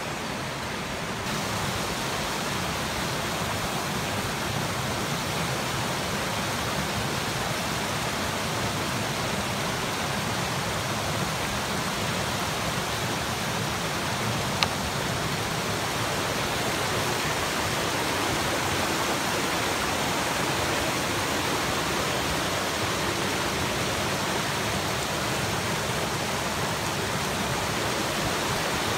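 River rushing over rocky rapids: a steady, even rush of water, with one short click about halfway through.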